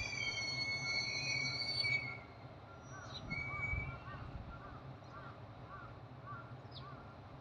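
Single-car diesel railcar with its engine humming low and steady, and a high metallic squeal from its wheels for the first two seconds. After the squeal stops, a bird calls repeatedly, about two short calls a second.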